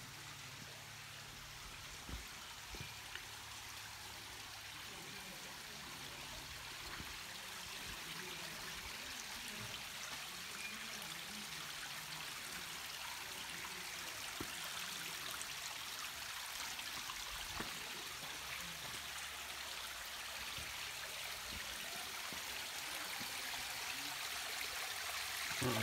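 Shallow stream running and trickling over rock, a steady watery rush that grows gradually louder.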